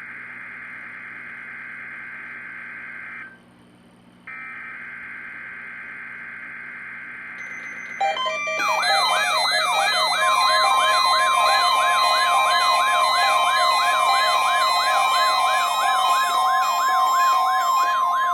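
Electronic emergency alert tones: two harsh, buzzing data-like screeches with a short gap between them, then from about eight seconds in a loud layered mix of siren wails repeating about two and a half times a second. A steady warning alarm tone joins about two seconds later.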